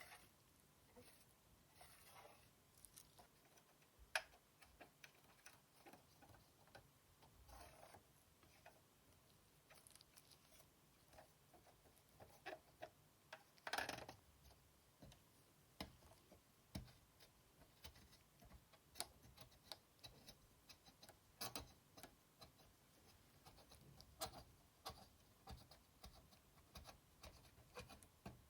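Faint, scattered clicks and a few short brushing or scrubbing sounds from the plastic middle frame of a PS4 Slim being handled and cleaned by hand, over a near-silent room.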